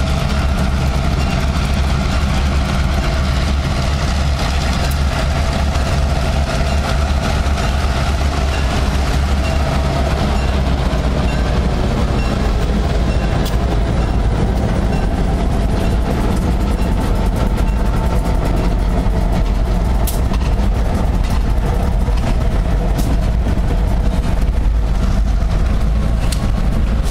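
Two EMD GP38-2 diesel-electric locomotives passing close by, their 16-cylinder two-stroke engines running with a steady low drone. A few sharp clicks come in the second half.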